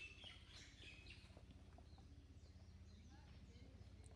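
Near silence: faint outdoor ambience with a low steady hum and a few faint bird chirps, mostly in the first second.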